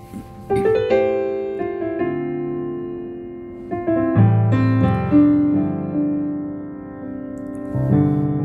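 Yamaha PSR-A5000 keyboard playing the built-in demo of its S.Art Concert Grand piano voice: a slow melody over held chords, each note ringing and fading.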